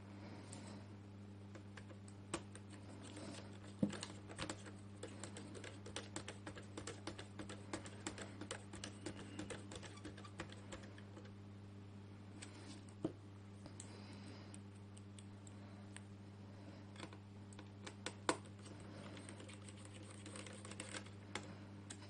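Small Phillips screwdriver driving screws back into a laptop's drive support bracket: scattered faint clicks and ticks of the bit against the screws and metal, a few sharper taps among them, over a steady low hum.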